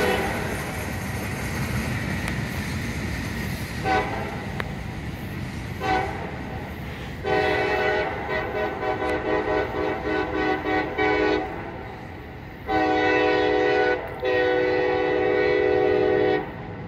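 A CSX freight locomotive's air horn sounds a chord in a series of blasts: two short toots, then three long ones. Under it runs the fading rumble of the boxcars rolling away.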